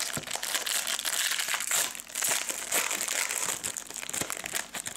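Foil wrapper of a 2014 Panini Hot Rookies trading-card pack crinkling and crackling as it is handled and pulled open.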